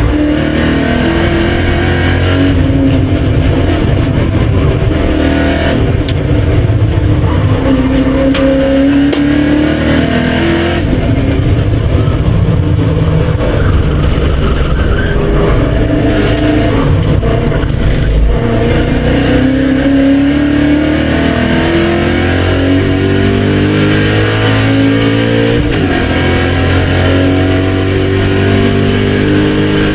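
BMW M5 E39's V8 engine running hard at full throttle on track, climbing in pitch through the revs and dropping back at gear changes, several times over.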